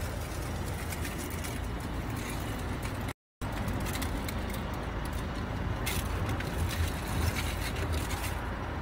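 Aluminium foil crinkling as a wrapped food parcel is handled and opened, over the steady low hum of a car idling. The sound cuts out briefly about three seconds in.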